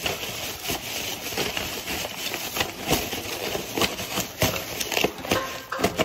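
Hands rummaging for paper napkins: a rapid, irregular run of rustles, crackles and small knocks.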